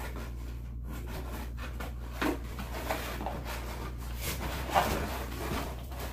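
A cardboard box being cut open with scissors and its flaps pulled apart: irregular scraping, rubbing and crackling of cardboard and packing tape, with a few sharper scrapes over a low steady hum.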